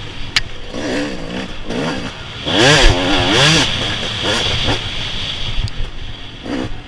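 Small off-road racing engine revving up and falling back again and again, loudest about halfway through, over a steady hiss.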